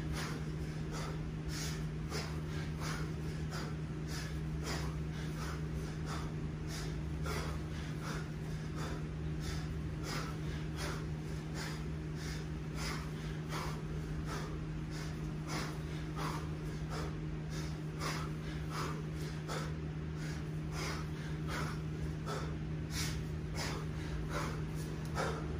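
Man breathing hard under sustained effort, short sharp breaths through nose and mouth in quick, regular succession, while snatching a 20 kg kettlebell deep into a ten-minute set. A steady low hum runs underneath.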